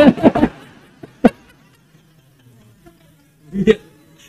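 A pause in a man's lecture at a microphone: his voice trails off, then a faint steady hum under a single sharp click just over a second in, and a brief murmur of voice near the end.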